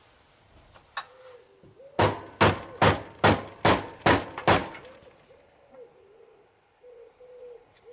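A single click, then seven sharp knocks about two a second: striking at the twisted plug wedged between the circlip and the wall of a Suzuki GR650 front fork leg to free it before the seal clip comes out.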